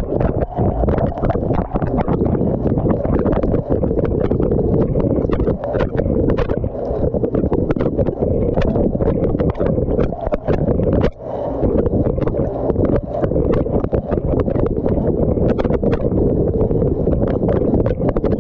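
Dishwasher wash cycle heard from inside the tub: a steady rushing spray from the spray arms with a dense, irregular patter of water jets and droplets striking the camera housing. The spray dips briefly about 11 seconds in.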